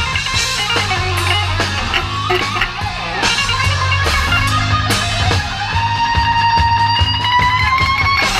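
Live rock band with a lead electric guitar playing over bass and drums, the guitar ending on one long held note that bends slowly upward.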